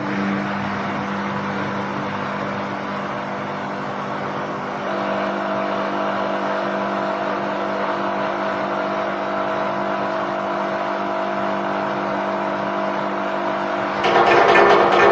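Miele W1 Classic washing machine spinning: a steady motor and drum drone, with a higher whine joining about five seconds in as the spin speeds up. Near the end it gets louder with a rapid rhythmic clatter, the suspension springs and dampers rattling under an unbalanced load, a known fault of this model.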